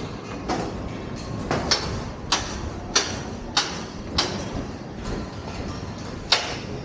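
Footsteps crunching on a sandy, gritty construction-site floor, sharp steps roughly every 0.6 s, over a steady noisy background.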